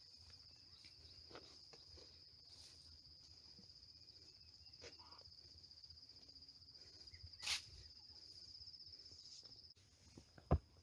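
A cricket trilling in a steady, high, unbroken buzz that stops shortly before the end. A single sharp click comes about seven and a half seconds in, and there are a couple of soft thumps near the end.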